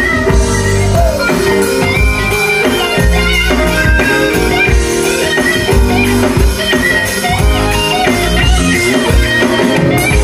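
Live band playing upbeat dance music, with electric guitar, keyboard and drum kit over strong low bass notes and a steady beat.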